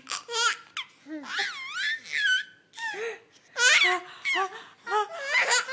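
A seven-month-old baby babbling and giggling in a string of short, high-pitched squeals that swoop up and down in pitch.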